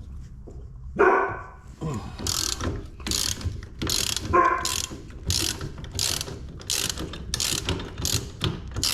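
Socket wrench ratchet clicking in steady strokes, about one and a half to two a second, turning the 3/4-inch nut on a toolbox caster's axle bolt. Two short high-pitched yelps cut in, about a second in and again near the middle.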